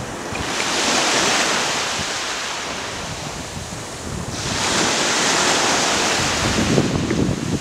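Sea waves washing in on the shore: a rushing hiss that swells and fades twice, about four seconds apart. Wind rumbles on the microphone, strongest near the end.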